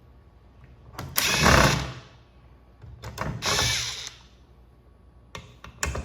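Impact driver run in two short bursts, each about a second long, about a second and about three seconds in, backing screws out.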